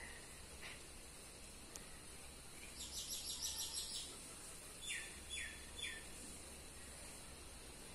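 Small bird calling: a rapid, high chattering run of about ten notes, then three short high notes that slide downward, about half a second apart. Faint steady background hiss, with a sharp click at the very start.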